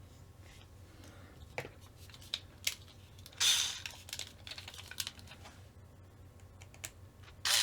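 Light clicks and taps of small screws, spacers and tools being handled while a screw is driven into an RC truck's mount, with two short, louder scraping bursts, one a little past three seconds in and one near the end.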